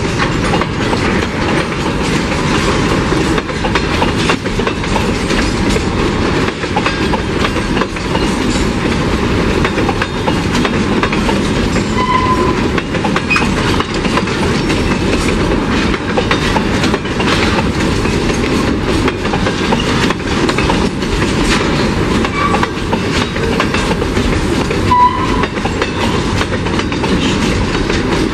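Empty covered freight wagons rolling past, their wheels clattering steadily over the rail joints in a dense, continuous clicking.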